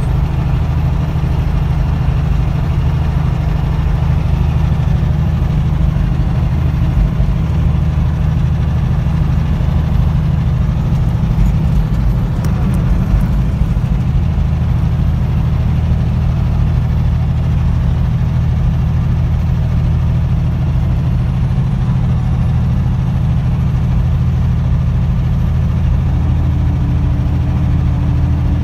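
Semi-truck's diesel engine and road noise heard from inside the cab while cruising on the highway: a loud, steady low drone. A faint steady hum joins near the end.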